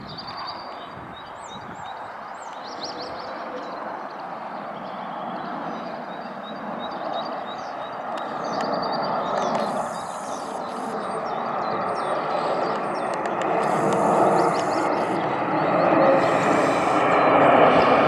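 Boeing 747's four jet engines, a broad rushing roar growing steadily louder as the airliner passes low overhead. Birds chirp faintly in the first half.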